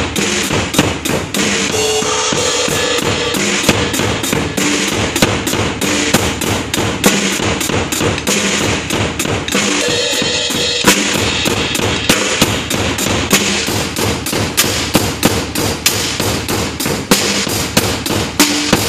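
A child playing an acoustic drum kit: a steady, fast beat on snare and bass drum with cymbals ringing over it.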